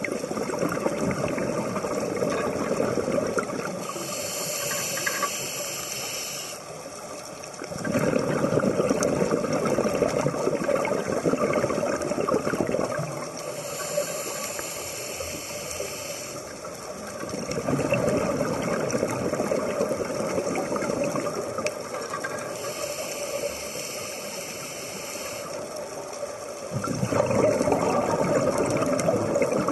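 Scuba diver breathing through a regulator underwater: a hissing inhalation through the demand valve, then a longer, louder bubbling exhalation. The cycle repeats three times, about every nine to ten seconds.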